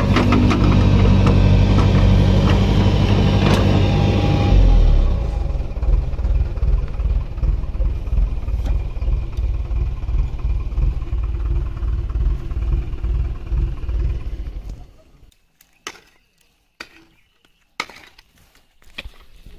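A motor vehicle's engine running, which fades away about three-quarters of the way through. After it, a short-handled hoe strikes into the dirt four or five times, about a second apart.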